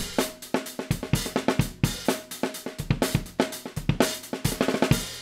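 Drum kit playing a fast beat of snare, bass drum and cymbals, several hits a second, cutting off near the end.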